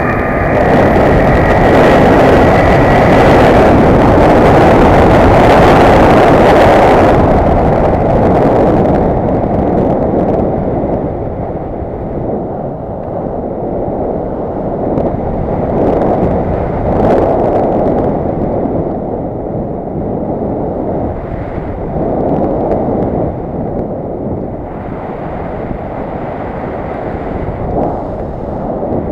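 Wind rushing over the microphone of an action camera riding on a radio-controlled model glider in gliding flight. The propeller motor's whine stops right at the start. The wind noise is loudest for the first several seconds, then quieter and gusty.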